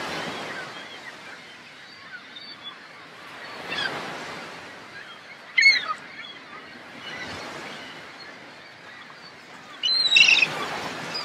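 Surf washing on a shore, swelling and fading every few seconds, with seabirds calling over it: a few short calls about halfway through and a louder burst of calls near the end.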